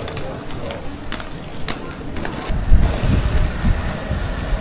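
Outdoor ambience on a paved boardwalk: a few sharp clicks in the first half, then a low, uneven rumble from about halfway through that grows louder toward the end.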